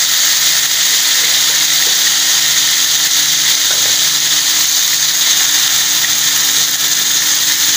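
Marinated chicken pieces sizzling in hot oil in a karahi: a loud, steady frying hiss, with a faint steady hum beneath it.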